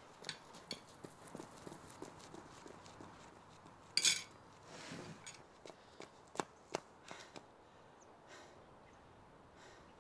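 Running footsteps on a paved path, a quick even patter of about three steps a second, with a louder sharp noise about four seconds in; the steps thin out and stop after about seven seconds.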